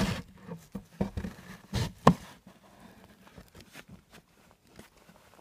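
Close handling noise of an old black shoe being gripped and flexed by hand right against the phone: scattered knocks, clicks and rubbing. The loudest is a sharp knock about two seconds in, then quieter fumbling.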